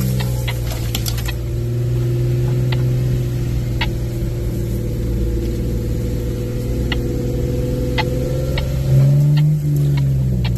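Vehicle engine heard from inside the cab while driving slowly along a rough dirt trail. Its note holds steady, then rises briefly near the end as it is given more throttle. Occasional sharp clicks and knocks are scattered through it.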